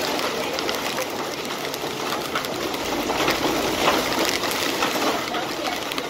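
Heavy wind-driven rain in a storm: a steady, dense rush of rain and wind.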